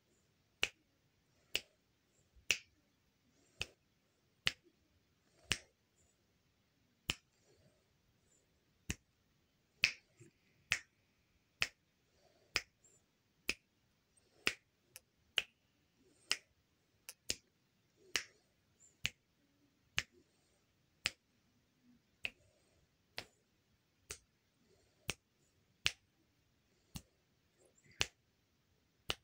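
Fingers snapping over and over, about one sharp snap a second at an uneven pace, now and then two in quick succession.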